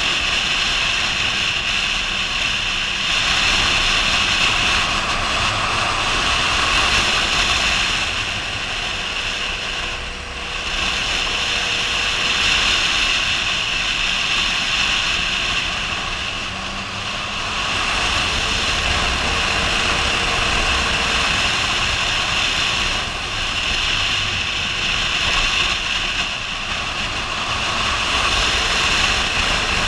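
Wind rushing over the camera microphone at road speed, with a Yamaha MT-09's inline three-cylinder engine running underneath. The roar dips briefly twice.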